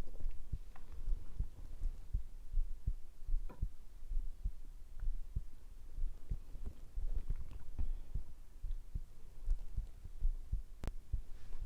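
Low, pulsing heartbeat-like thumps picked up at the belly, with faint small digestive gurgles and ticks and one sharp click near the end.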